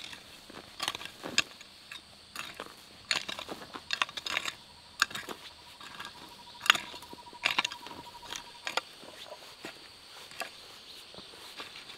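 Hand hoe striking and scraping into loose soil, an irregular run of sharp chops, one or two a second, that thins out after about nine seconds.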